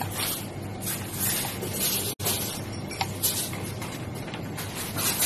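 Café background at an espresso machine: a steady low hum with short hissing swells every second or so, while milk is poured for latte art; the sound cuts out for an instant about two seconds in.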